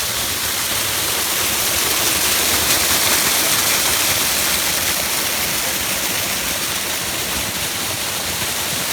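Waterfall cascading: a loud, steady rush of falling water.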